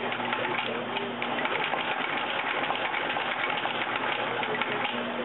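Blake (Littleway/McKay) stitching machine running steadily, sewing through a shoe's midsole with a rapid, even run of stitches. A low steady hum drops out about one and a half seconds in and comes back near the end.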